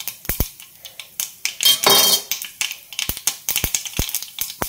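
Mustard seeds popping and spluttering in hot oil in a small kadai: irregular sharp pops, with a brief louder burst of sizzling about two seconds in. The popping marks the tempering stage, the seeds bursting as the oil is hot enough.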